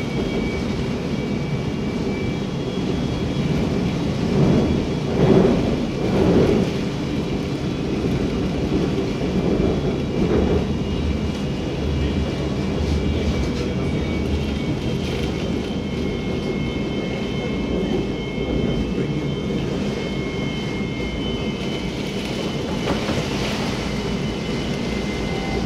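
Inside the cabin of a CSR Zhuzhou light rail train running, a steady rumble with a faint high whine, and rain on the windows. It swells louder twice, about five and six and a half seconds in.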